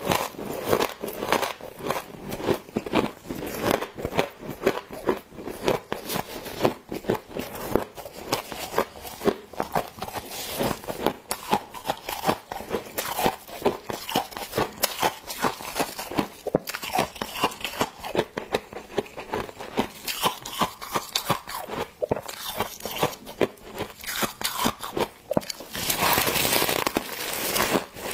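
Close-miked biting, crunching and chewing of mouthfuls of packed freezer frost, a dense run of crisp crackles. It grows denser and louder near the end with a fresh big bite.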